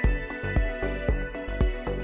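Background music: an electronic track with a steady beat of about four strikes a second over held synth notes.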